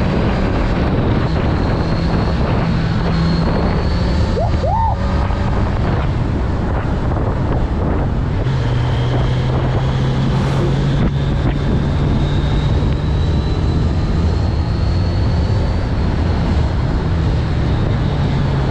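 Kawasaki Z900's inline-four engine running steadily at road speed, heard from the bike with wind rushing over the microphone. The engine note settles lower about halfway through and rises again near the end.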